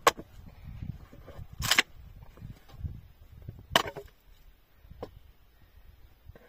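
Short-handled axe chopping into a dry wooden stump: three sharp strikes about two seconds apart, then a lighter knock about five seconds in.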